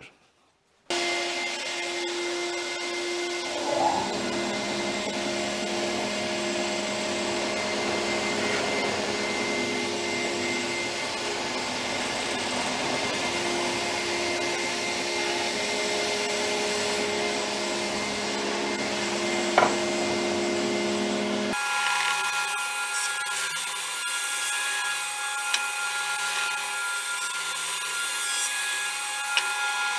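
Planer thicknesser running in surface-planing mode, its cutter block taking shallow cuts off a sapele board pushed across the bed: a loud, steady machine whine with cutting noise. The sound starts about a second in and changes abruptly about two-thirds through.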